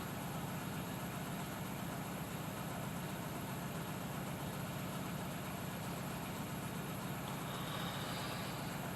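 Steady low hum of an idling truck engine, unchanging throughout.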